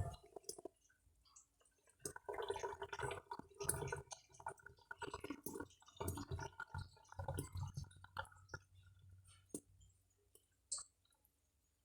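Faint, irregular small clicks and wet squishing sounds, thickest in the middle and thinning to a few single clicks near the end.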